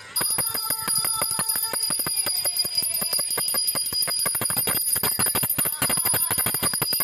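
Small brass puja hand bell (ghanti) rung rapidly and continuously during aarti, several clapper strikes a second over a steady high ring. It starts just after the beginning.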